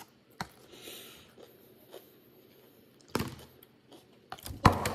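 Takeout food containers and utensils being handled and set down. There is a click early on and a brief rustle, then a few knocks about three seconds in and a louder cluster of thumps near the end.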